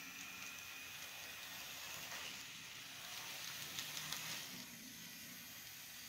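Model train running past: a Southern Pacific diesel locomotive hauling double-stack container cars, heard as a faint steady rushing hiss over a background hiss. The rushing swells about two seconds in, with a few light clicks, and eases off near the end.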